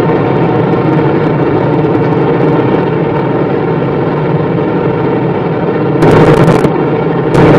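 Car running flat out at very high speed, heard from inside the cabin: a steady engine drone over wind and road noise. About six seconds in, a sudden, much louder, harsher rush cuts in, breaks off, and comes back near the end.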